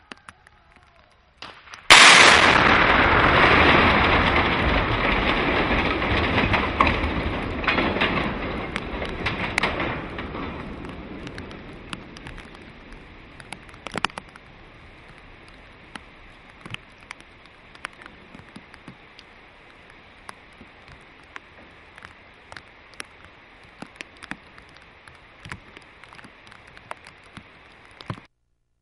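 Explosive demolition charges going off on a bridge: a sudden loud blast about two seconds in, then a long rumble that dies away over about eight seconds, followed by scattered small knocks.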